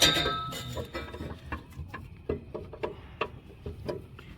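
A ratchet strap's ratchet being worked to cinch a broken transfer case mount in place: a sharp metallic clank, then a run of short clicks, about two a second.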